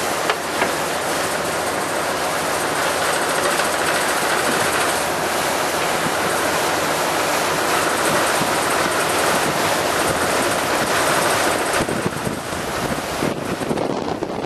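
Steady rush of wind on the microphone and water noise aboard a moving boat, turning more uneven and gusty near the end.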